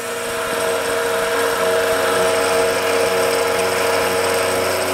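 Sherline mill spindle driving a four-flute serrated roughing end mill through the edge of half-inch 6061 aluminum plate in a 40-thou side cut. A steady whine over an even cutting hiss.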